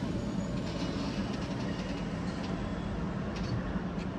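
DSB double-deck Twindexx passenger train, hauled by a Siemens Vectron electric locomotive, rolling slowly along the platform as it comes to a stop. It makes a steady low rumble, with a few short clicks near the end.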